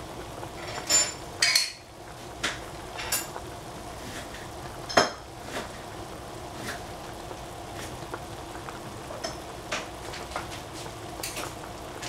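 Kitchen utensils and dishes being handled: a dozen or so short clinks and knocks, scattered and irregular, the loudest about five seconds in, over a steady low background.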